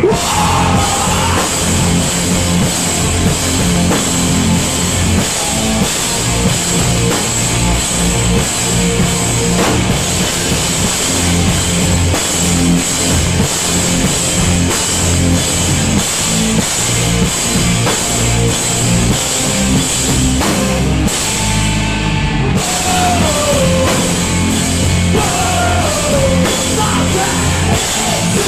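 Live punk rock band playing loud: distorted electric guitars, bass and a drum kit. About three-quarters of the way through the cymbals drop out for a moment, then the full band comes back in.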